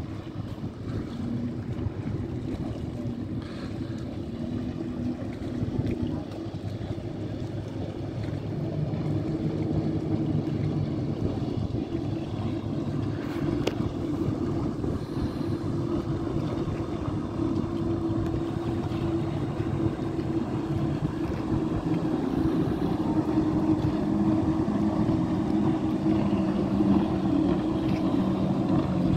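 Motorboat engines running steadily, a few engine tones shifting in pitch, over wind on the microphone and the wash of water; the engine noise grows louder over the second half.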